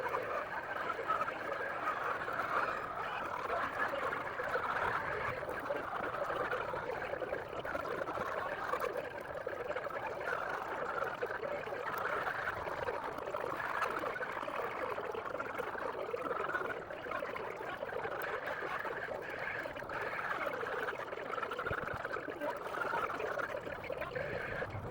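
A flock of hens in a poultry house clucking and murmuring all together, a steady dense chatter with no single call standing out.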